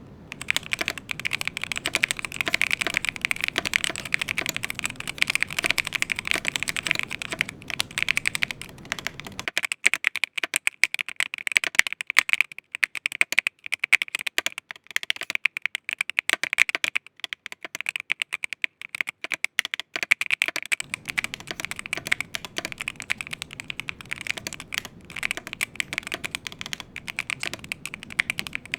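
Continuous fast typing on an IQUNIX EZ80 Hall-effect magnetic keyboard in an aluminium case: a dense run of clacking keystrokes. From about ten seconds in until about twenty-one seconds the deeper thud under the clicks drops out, leaving a thinner, brighter clacking, before the fuller sound returns.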